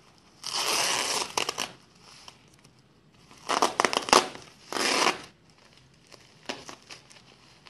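Bubble-wrap packaging crinkling and packing tape being peeled off as a package is unwrapped, in three bursts of rustling and ripping with smaller rustles near the end.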